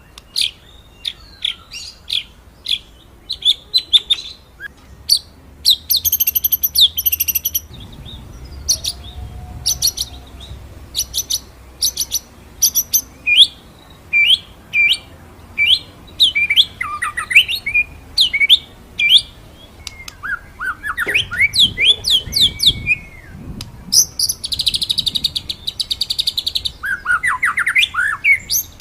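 White-rumped shama (murai batu) singing: a fast run of short, sharp whistled notes broken by quick sweeping phrases and a couple of longer, dense rolling trills.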